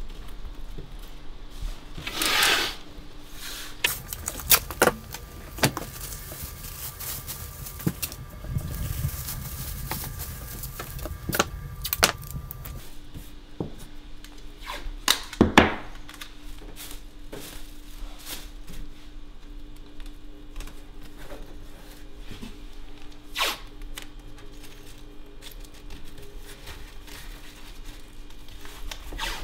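Masking plastic and tape being pulled off a 3M Hand-Masker and pressed into place. There is a brief rasp of unrolling tape and film about two seconds in, then scattered clicks, taps and crinkles of plastic sheeting being handled.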